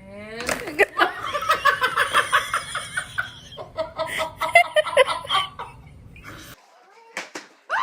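Hearty human laughter in quick repeated pulses, with a few shorter laughs after, stopping abruptly about six and a half seconds in.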